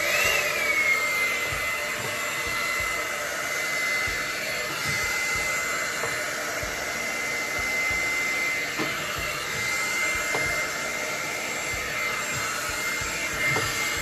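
Vivitar 3-in-1 hot air brush (hair dryer brush) switched on and blowing: its motor whine climbs quickly at the start, dips back and settles to a steady high-pitched whine over the rush of air.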